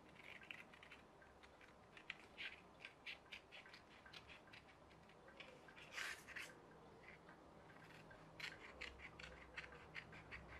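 Scissors snipping through folded paper in short, faint cuts, one after another; one snip about six seconds in stands out, and a quick run of snips comes near the end.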